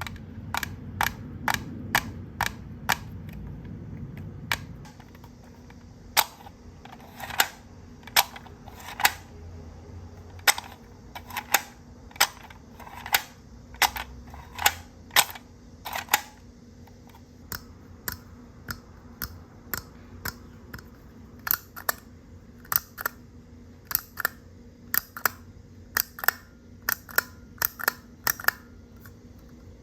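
Small plastic toy pieces clicking and tapping as they are handled and set down: a long run of sharp clicks, about one or two a second, some in quick pairs.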